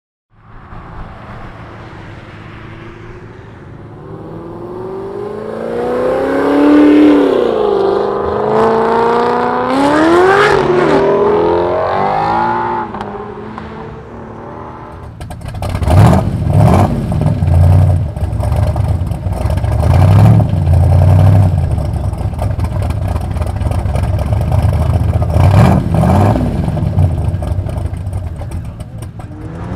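Performance car engines accelerating hard. The engine note climbs, drops back and climbs again, as in shifting up through the gears. Then a louder, rough stretch of revving follows, broken by many sharp cracks.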